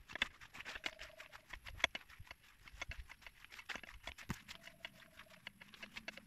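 Footsteps crunching and rustling through grass and leaves on foot, a quick irregular crackle of small snaps. Two faint steady tones, each about a second long, come in about a second in and again past the middle.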